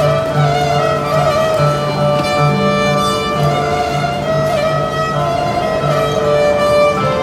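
Live duet of violin and oud: the violin plays a sustained, slightly wavering melody over short, repeated plucked oud notes.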